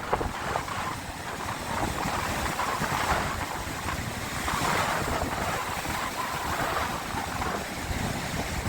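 Sea waves washing ashore, a steady hiss that swells and eases every second or two, with wind rumbling on the microphone.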